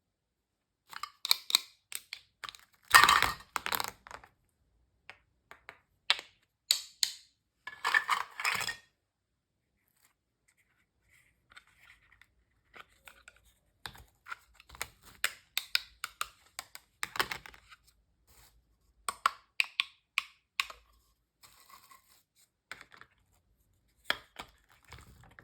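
Toy food pieces clicking, tapping and scraping as they are cut and handled, in irregular short bursts with a pause of a couple of seconds about a third of the way through.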